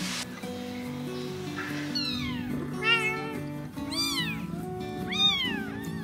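A cat meowing about four times, each call rising and then falling in pitch, over background music with slow sustained notes.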